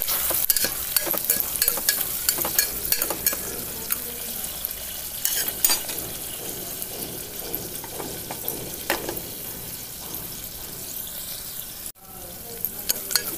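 Sliced onions and green chillies frying in hot oil in an open pressure cooker: a steady sizzle with many small crackles, busiest in the first few seconds and then settling to a gentler sizzle.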